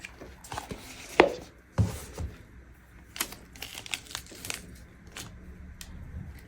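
Sunglasses and their case being handled: scattered sharp clicks and light knocks, the loudest in the first two seconds, with soft rustling.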